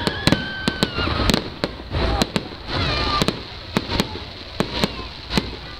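Aerial firework shells bursting overhead: a rapid, irregular series of more than a dozen sharp bangs and cracks over a continuous rumble.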